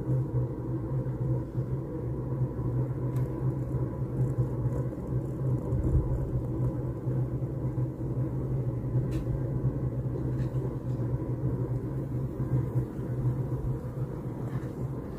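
A vehicle's steady low rumble with a constant engine hum.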